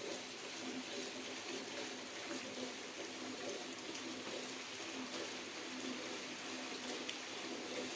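Steady hiss of running or splashing water, with a faint low hum underneath.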